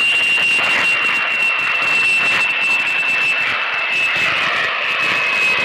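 Jet airliner engines running in a low flyover: a steady rush of noise with a strong high whine that drifts slowly down in pitch.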